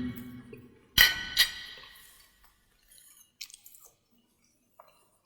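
Two sharp clinks of tableware, about half a second apart, each ringing out for about a second, followed by a few faint clicks.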